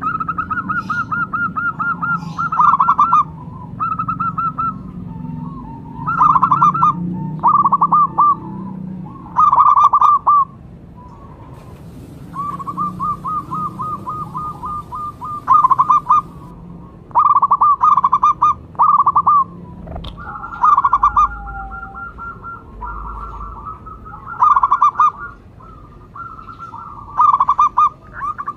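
Zebra doves (local perkutut) cooing: repeated phrases of quick stuttering coos, several birds answering one another so that phrases sometimes overlap.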